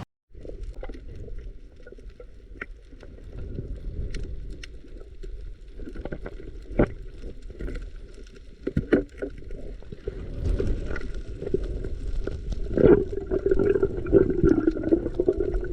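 Muffled water sloshing with scattered sharp knocks, growing louder in the second half, typical of a small boat moving on the water.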